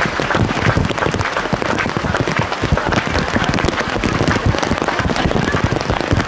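Crowd applauding in heavy rain, a dense steady crackle of clapping mixed with raindrops striking a plastic rain cover over the camera.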